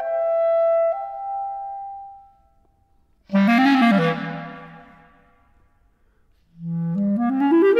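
Unaccompanied clarinet playing a slow, spaced improvisation. A held high note fades out, and after a pause a strong low note with a quick bend in pitch sounds and dies away. Near the end a fast run climbs from the bottom of the range.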